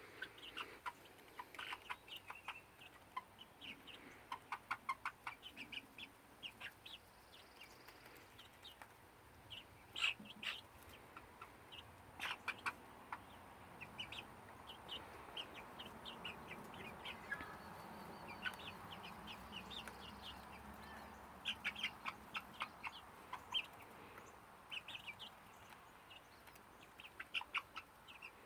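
Backyard hens clucking softly, with clusters of quick, sharp taps all through. A faint steady rumble swells and fades around the middle.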